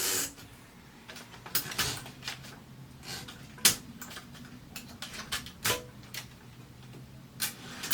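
Scattered metallic clicks and knocks from a Consul 224 portable typewriter's carriage being set back onto its frame, with the sharpest click about halfway through.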